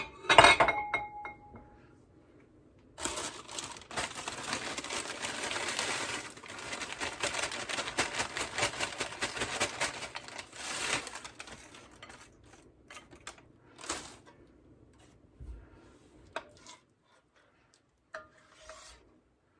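Kitchen handling sounds while layering bananas and vanilla wafers: a sharp clink against a dish with a brief ring at the start, then several seconds of dense crackling rustle, then scattered light taps near the end.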